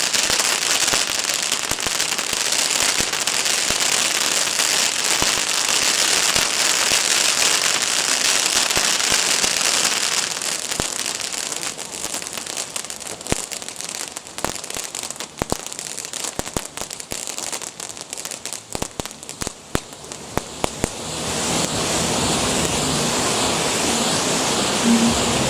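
Fireworks: a dense, continuous crackling for about ten seconds, then thinning into scattered sharp cracks and pops. Near the end a steady rushing hiss builds up.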